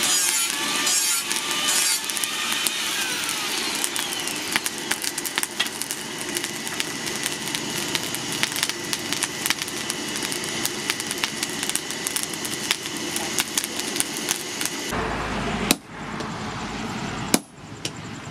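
Blacksmith's coal forge fire burning with a steady rush of air, the coals crackling and popping many times. About fifteen seconds in, the sound changes to a duller, lower noise with a few sharp metallic knocks as the hot steel is handled with tongs on the anvil.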